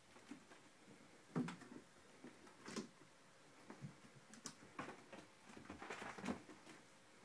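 A cat pouncing and landing: scattered soft thumps, taps and scrabbling on a leather armchair and wooden floor, the loudest thump about one and a half seconds in.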